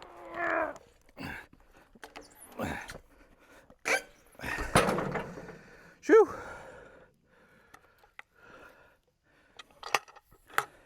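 A man grunting and breathing hard with effort while turning a heavy log, with a few wooden knocks. About six seconds in he blows out a loud "shoo!"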